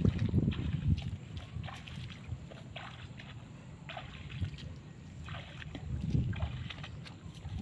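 Footsteps wading through shallow floodwater and wet grass: irregular small sloshes and splashes, one or two a second.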